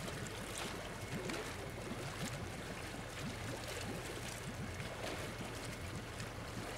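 Water splashing and dripping as a hand net and a plastic cup scoop rohu fry out of a shallow, crowded tank, with a steady stream of small plops and drips.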